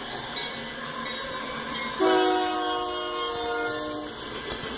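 Freight locomotive's multi-chime air horn sounding one blast of about two seconds, starting abruptly about two seconds in, as a grade-crossing warning. Under it is the steady rumble of the passing freight train.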